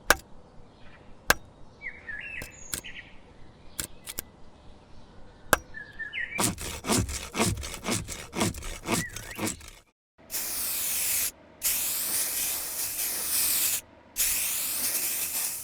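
Foley sound effects made with props. Scattered sharp clicks and taps with a few short squeaks lead into a quick run of rubbing knocks. Then come three long bursts of loud hiss, each cut off by a brief gap.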